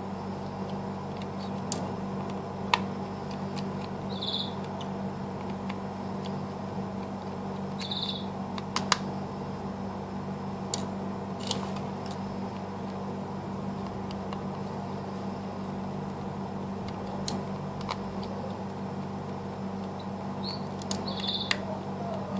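A small screwdriver and the plastic housing of a Lenovo phone give sharp little clicks and taps now and then as the back screws are worked loose, over a steady low hum. A few short high chirps come about four and eight seconds in and again near the end.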